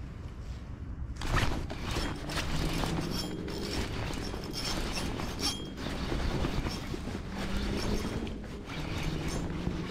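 Spinning fishing reel being cranked, its gears grinding and clicking in a dense run that starts abruptly about a second in.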